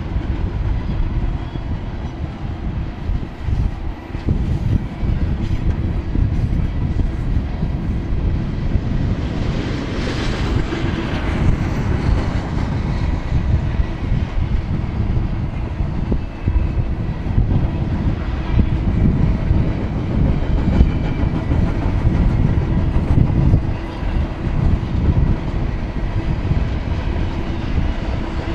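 Double-stack intermodal freight train's loaded well cars rolling past, a steady heavy rumble of steel wheels on the rails, with a brief rise of higher hiss about ten seconds in.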